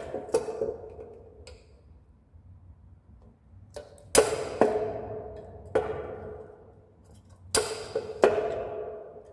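Sharp metal-on-metal knocks while working a stuck part off a scooter's kickstarter mechanism with hand tools. There are about six strikes, each ringing out for up to a second, and the loudest come about four and seven and a half seconds in.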